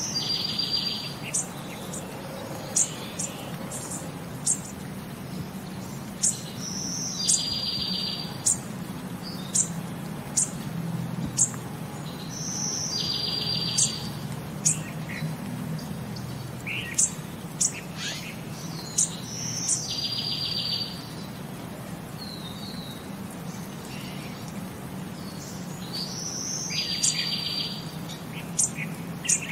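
A bird calling over and over, about every six and a half seconds: a short high note followed by a rapid trill about a second long, with many sharp, short high chirps in between. A low steady hum runs underneath.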